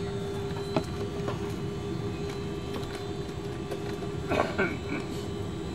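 Inside the cabin of a Boeing 777-200 airliner taxiing: a steady rumble from the engines and air system with a steady hum over it. A short click comes about a second in, and a brief louder knock about four seconds in.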